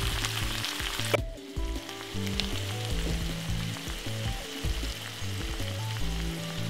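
Saltfish with onions and peppers sizzling in a frying pan, loud for the first second or so, then much fainter. Background music with sustained low notes plays under it.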